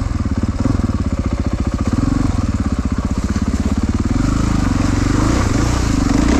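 KTM 450 four-stroke single-cylinder enduro motorcycle engine running at low, lugging revs under load on a trail ride. The throttle blips and the revs rise and fall a few times.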